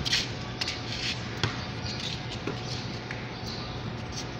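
A basketball bouncing a few times on a concrete floor, the knocks spaced unevenly and the first the loudest.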